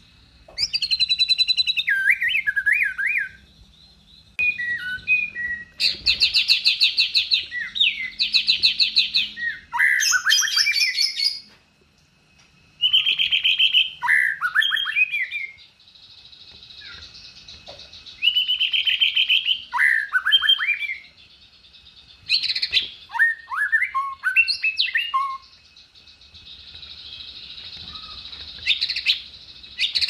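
White-rumped shama (murai batu) singing in phrases of a few seconds with short pauses between them. Fast, dense trills alternate with clear whistled notes that slide downward in pitch.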